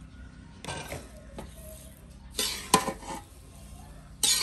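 Metal spatula scraping and stirring through a dry mix of roasted semolina, nuts and sliced dried dates in a large black wok, in three scraping strokes. The loudest stroke, about two-thirds of the way through, carries a sharp clink of metal on the pan.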